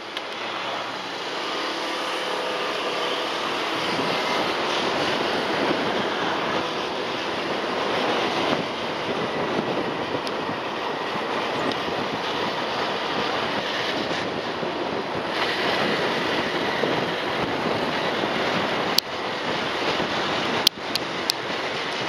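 Vehicle driving on an open road: steady wind and road noise with the engine running, building up over the first few seconds as it gathers speed. A few sharp knocks sound near the end.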